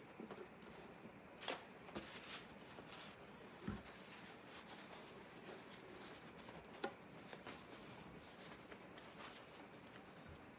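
Faint rustling of a paper towel wiping excess glue off a mandolin's freshly glued binding, with scattered light clicks and taps as the instrument is handled, and one soft knock a few seconds in.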